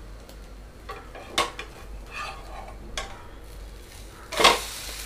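Steel spatula scraping and tapping under an omelette in a nonstick frying pan over a faint sizzle. About four seconds in the omelette is flipped, its underside cooked, and lands back on the pan with a louder slap.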